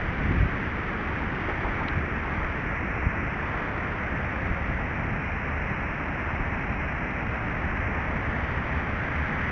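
Steady wind noise rumbling and hissing on the small built-in microphone of hidden-camera sunglasses.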